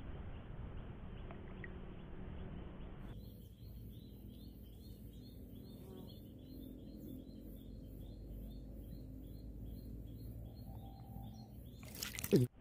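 Outdoor ambience with a steady low rumble; from about three seconds in, a high chirp repeats a few times a second. A short loud whoosh comes near the end.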